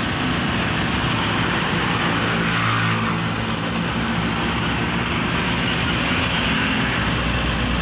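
Steady engine and road noise heard inside a moving car driving through busy city traffic.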